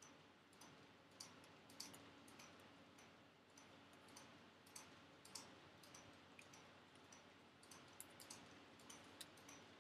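Near silence: faint room tone with a scattering of small, irregular clicks.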